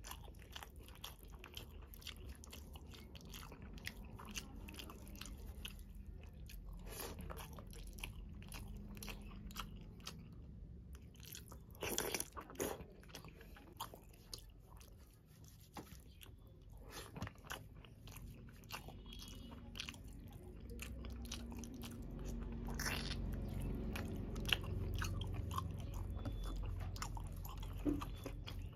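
Fingers squishing and mixing cooked rice into curry gravy on a steel plate: a continuous run of small wet clicks and smacks, with a few louder ones about twelve seconds in and again near the end.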